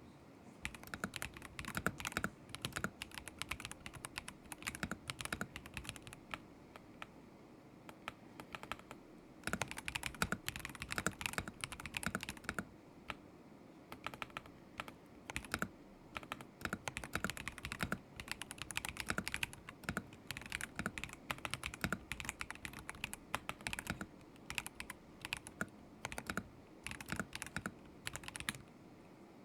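Typing on a KZZI K75 Pro mechanical keyboard with Moment linear switches: quick runs of keystrokes with brief gaps, a pause of about two seconds roughly a third of the way in, and the typing stopping shortly before the end.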